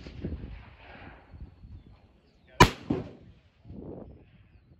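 A single loud 5.56 rifle shot about two and a half seconds in, followed by a fainter second report a moment later.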